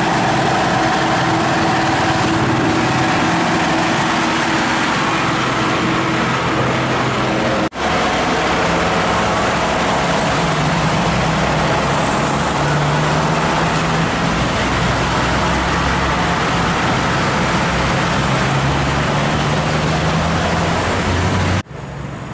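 Heavy diesel truck engine running steadily as a tractor unit with a lowboy trailer drives past, with road and traffic noise. The sound cuts out for an instant about eight seconds in, and again near the end, where it gives way to quieter traffic.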